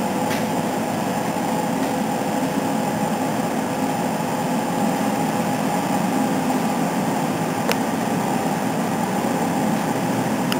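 Steady machine hum with a faint steady tone running through it, and a single sharp click about three-quarters of the way through.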